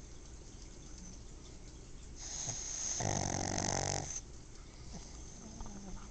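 A sleeping pug snoring loudly. One big snoring breath starts about two seconds in: a hiss of air that turns into a buzzing snore for about a second, then fades back to quieter breathing. Snoring this loud is a sign she is really tired.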